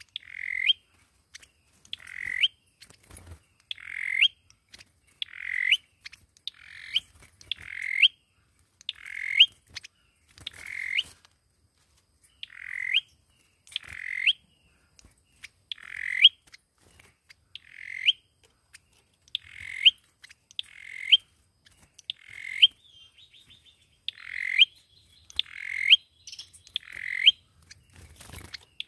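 Sâu dừa songbird calling the same short, rising note over and over, about one call every one to one and a half seconds, each ending in a sharp high note. A faint rapid twitter joins briefly a little past the middle.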